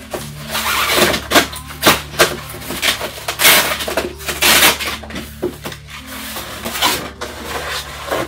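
Cardboard shipping box being opened and its packed contents handled: a busy run of rustles, scrapes and knocks, over a faint steady low hum.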